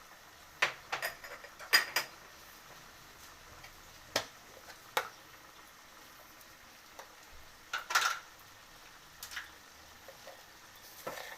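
Kitchen utensils clinking and knocking against dishes and pans in scattered short strikes, with a quick cluster in the first two seconds and another around eight seconds in.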